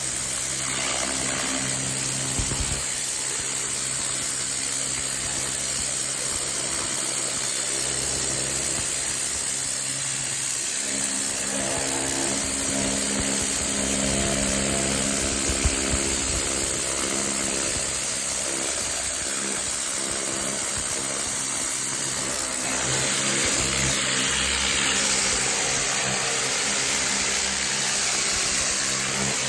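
Pressure washer running steadily, its motor's hum under the high hiss of water jetting from a turbo (rotating) nozzle. The hum changes pitch about 11 seconds in and again about 22 seconds in, when the spray hiss grows brighter.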